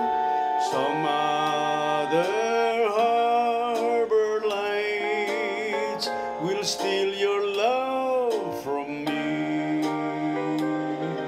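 Music: a slow song with guitar and a lead melody line that slides and bends between notes.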